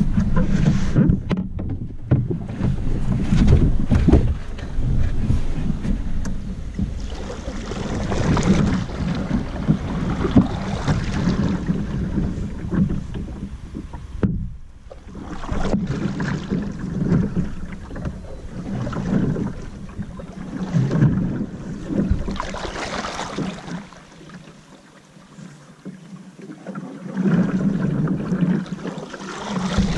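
Water washing against a moving canoe's hull on a river, with wind buffeting the microphone. The sound swells and falls every few seconds and dips quieter for a few seconds near the end.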